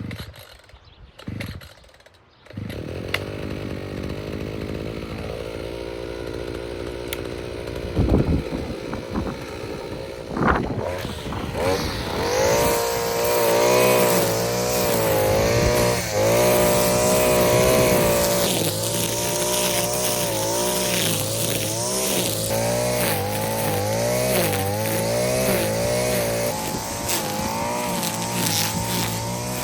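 Petrol string trimmer (whipper snipper) engine starting up about two and a half seconds in, then revved up to run at high speed while cutting grass, its pitch wavering as the line meets the grass.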